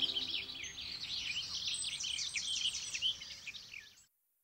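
Many small birds chirping together, a dense chorus of quick high calls that overlap one another. It cuts off abruptly about four seconds in.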